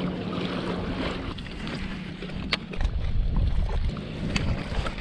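Water rushing and splashing along the hull of a moving kayak, with wind buffeting the microphone, heaviest from about halfway in. A faint steady hum runs through the first second, and a few sharp clicks come near the middle and the end.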